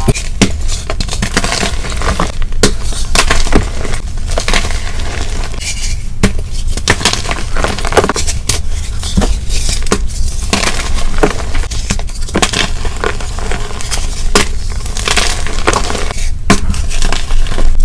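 Blocks of dyed gym chalk crushed and crumbled in the hands, a dense run of crisp, dry crunches and crumbles with no even rhythm.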